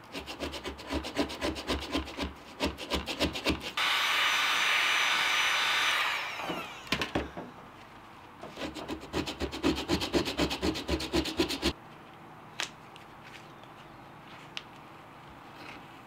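A scraper scraping a heat-softened pad off the underside of a plastic planter saucer in quick, repeated strokes, in two runs. Between them a heat gun blows steadily for about two seconds. The last few seconds are quiet apart from a couple of light clicks.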